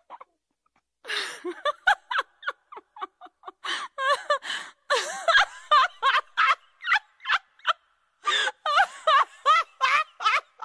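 High-pitched laughter in a long run of quick, cackling bursts, with a short pause about three-quarters of the way through.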